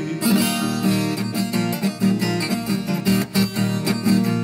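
Instrumental break of a moda de viola: viola caipira and acoustic strings plucked and strummed, with no singing.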